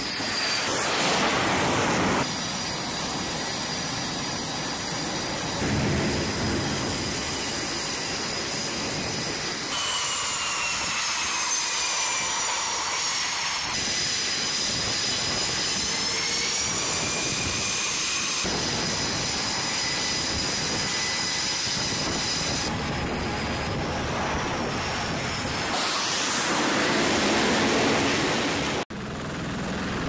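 Jet engines on a carrier flight deck, heard over several cut-together takes: F/A-18 Hornet-family jets running with a steady high-pitched turbine whine. Midway the whine falls in pitch and then rises again. The roar grows louder near the start, as a jet launches off the deck, and again near the end.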